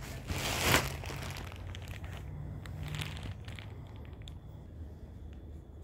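A short crinkling rustle about half a second in, then a weaker one about three seconds in, with a few faint clicks over a low background hum.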